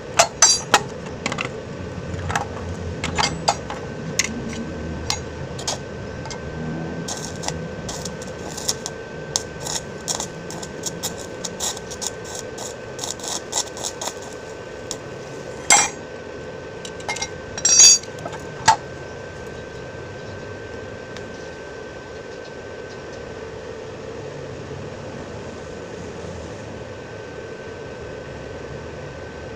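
Metal tools knocking and clinking on a scooter's CVT-case ball bearing as it is worked loose without a bearing puller: a string of sharp taps, with two louder knocks past the middle, then the tapping stops. A steady hum runs underneath.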